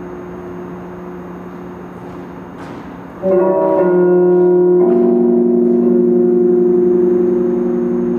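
Layered, steady droning tones held like a chord, growing suddenly louder and fuller about three seconds in, with another low tone joining near the five-second mark; a few faint clicks sound over it.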